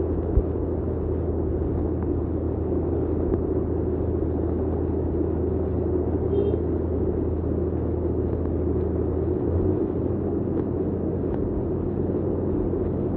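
Muddy floodwater rushing down a street in a flash flood: a steady, low rushing noise, with one short knock just after the start.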